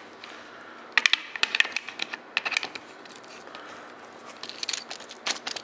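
Irregular sharp clicks and rattles as a cordless drill-driver with a hex bit works the sling-swivel stud nut loose in a polymer rifle stock's forend. There is a burst of clicking about a second in, a lull, then more clicking near the end.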